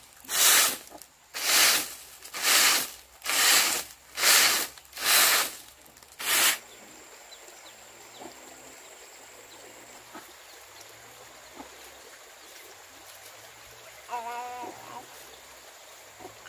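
About seven rhythmic rasping strokes, roughly one a second, like hand-sawing or scraping, which stop after about six seconds. Faint ticks follow, then a short wavering call near the end.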